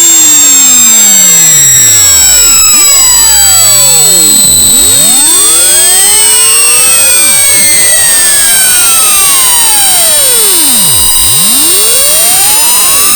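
Electronically generated test tones played extremely loud and harsh: many pitches sweep up and down at once in crossing glides, over a few steady high-pitched whistles and a hiss.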